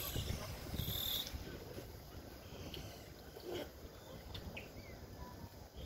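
Outdoor park ambience: a few short bird chirps over a faint steady insect hum, with a low rumble of wind on the microphone that is strongest in the first second.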